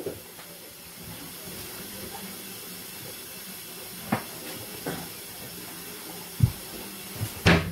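Steady low hiss of kitchen background noise, broken by a few short knocks and clicks, the loudest near the end.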